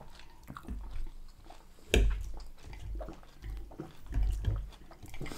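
Gulps of lemonade being swallowed, a series of soft low thuds, with one sharp click about two seconds in.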